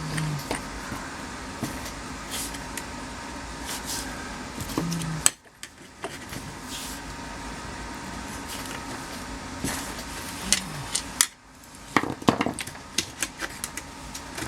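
Scattered clicks, taps and scrapes of a wiring connector and screwdriver working against the parts of a GM tilt/telescopic steering column as the turn signal switch harness is pushed down through it, over a steady hum. The clicks come thicker and louder near the end.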